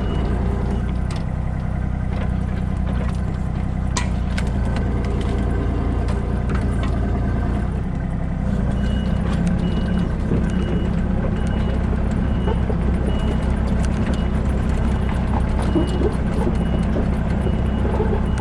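A heavy machine's engine running steadily under load. From about halfway through, a back-up alarm beeps at an even pace, about once every 0.7 seconds.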